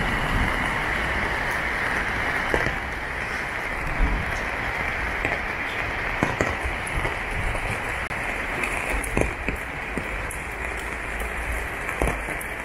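Steady rain falling on roofing and wet paving, a continuous hiss, with a few short thumps here and there.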